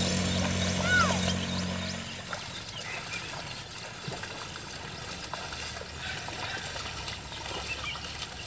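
Bullocks wading and a mud leveller dragging through a flooded paddy field, with faint splashing and trickling water and a few bird chirps. A steady low engine hum runs for the first two seconds, then stops.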